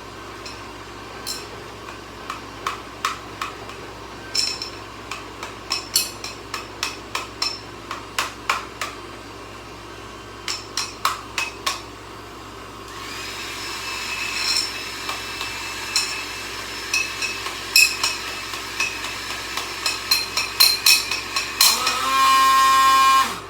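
A run of sharp, irregular clicks and taps of a tool being worked on a hair dryer. About 13 seconds in, a steady blowing hiss starts beneath them. Near the end a loud, high motor whine runs for about a second and a half and cuts off suddenly.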